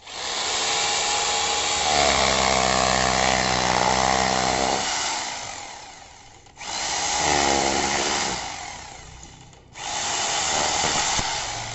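DeWalt D25133K 800 W rotary hammer drill in hammer-drill mode, run in three bursts. It starts at once, runs a few seconds and winds down, then is triggered again twice, each time fading off after release.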